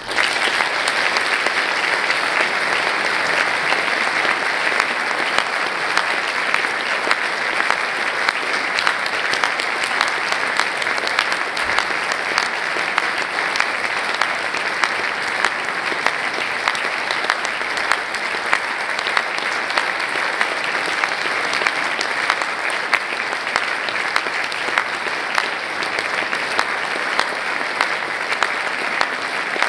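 Audience applauding: dense, steady clapping that starts suddenly and keeps going.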